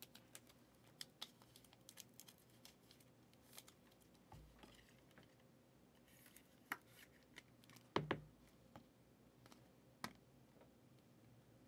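Faint, scattered clicks and light rustles of trading cards and plastic card holders being handled, with a couple of sharper clicks about two-thirds of the way through.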